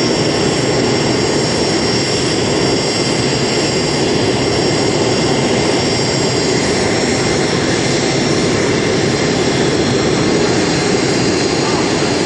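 Aircraft turbine engine running steadily: a dense rumble with a constant high whine over it.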